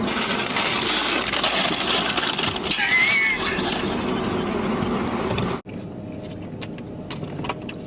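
A man's hard, wheezing laughter, breathless and hissy, with a brief high squeal about three seconds in. It cuts off suddenly a little past five seconds, leaving a quieter background with a few faint clicks.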